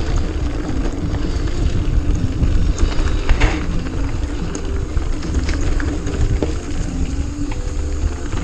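Mountain bike riding a dirt trail: a steady low rumble of wind and tyre noise on the camera microphone, with scattered clicks and rattles from the bike over the ground.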